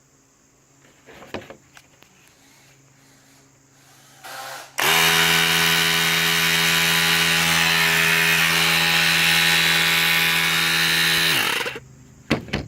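Argo 8x8 amphibious vehicle's engine, cranked briefly off the jump-starter pack, catches and runs steadily for about six and a half seconds, then is shut off and winds down. A few clicks come before it starts and two sharp clicks come after it stops.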